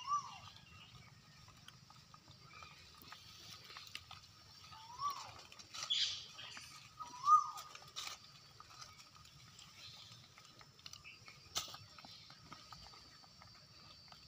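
Baby macaques sucking and smacking at a plastic juice bottle, with a few sharp clicks and three short squeaky calls that rise and fall in pitch, the loudest about seven seconds in.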